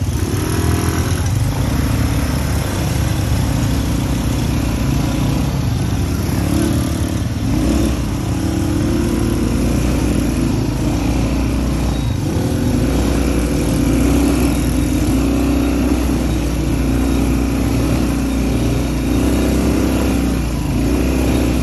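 Viar ATV (quad bike) engine running under way, its note rising and falling every second or two as the throttle is opened and eased over a rough dirt track.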